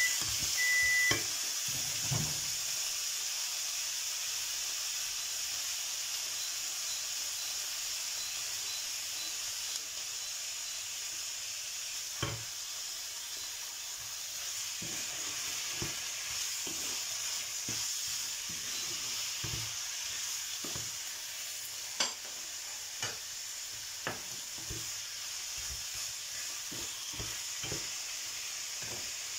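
Chicken pieces frying in olive oil with onion, garlic and ginger in a frying pan: a steady sizzle, with scattered knocks of a wooden spatula against the pan as the pieces are turned. A few short beeps sound in the first second.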